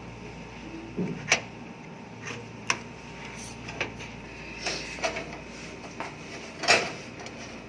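Scattered clicks and knocks, about eight, irregularly spaced, from hardware being handled, with the loudest near the start and near the end.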